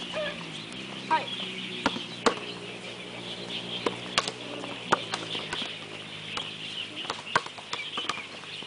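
Scattered sharp slaps of volleyballs being struck and bouncing on a hard outdoor court, about a dozen, irregularly spaced. Underneath runs a steady high chirring and a low steady hum.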